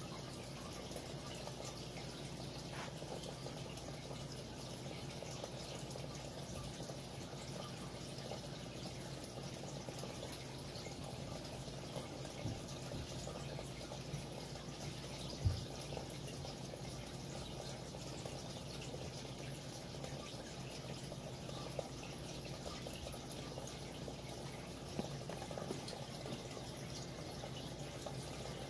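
Steady faint background hiss with a low hum, and one soft low thump about halfway through.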